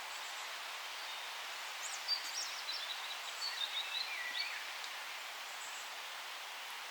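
A songbird sings one quick phrase of short, high chirps and whistled notes about two seconds in, lasting a couple of seconds, over a steady forest hiss.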